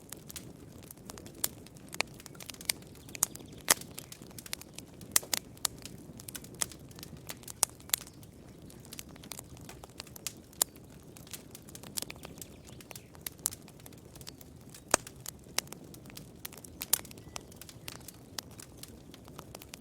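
Campfire crackling: irregular sharp pops and snaps of burning wood, a few much louder than the rest, over a steady low rush of the flames.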